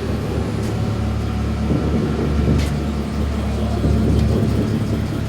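A steady low rumble with a constant low hum.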